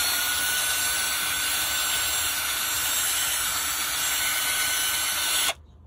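Cordless drill spinning a long wire thread-cleaning brush inside a steering-shaft joint's bolt hole, cleaning the threads: a steady motor whine with scraping hiss, cutting off suddenly about five and a half seconds in.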